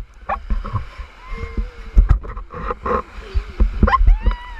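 Surf splashing around an inflatable raft, heard through a waterproofed action camera on a pole: irregular knocks and splashes over a low rumble of moving water. A child laughs and squeals between the splashes, with a rising-and-falling shriek near the end.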